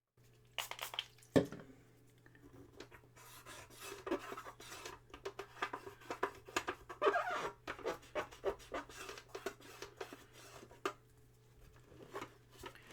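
Scratchy rubbing and clicking of a cleaning swab scrubbed against the turning rubber roller of a Commodore Datassette tape deck running in play, over a steady low hum, with one sharp knock about a second and a half in.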